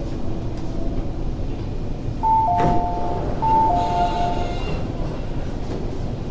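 Metro door-opening chime on an MTR Tuen Ma Line train at the platform: a two-note ding-dong, high then low, played twice, with a clunk as it starts and a faint hiss of the doors sliding open, over the low rumble of the train.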